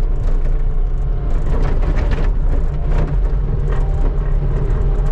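Skid steer engine running steadily under load, heard from inside the cab, with a few short knocks and clatters about two and three seconds in.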